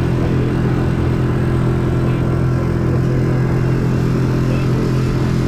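Outboard motor of an inflatable dinghy running steadily at speed, its drone holding one even pitch throughout.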